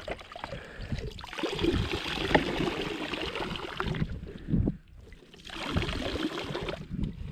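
Water running and splashing out of a perforated plastic-bottle fish trap as it is pulled from an ice hole, in two spells with a short lull between, with scattered knocks from handling the bottle.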